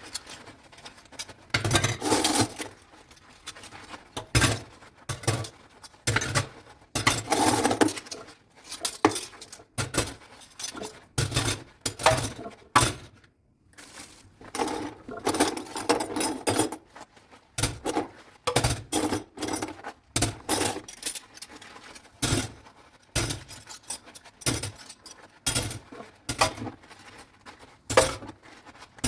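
Dishes and cutlery clinking and clattering together as they are washed by hand, in quick irregular knocks and scrapes, with a brief pause about halfway.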